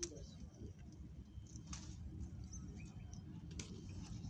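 Faint outdoor background: a steady low rumble, a few short high bird chirps, and three sharp clicks spaced about a second and a half to two seconds apart.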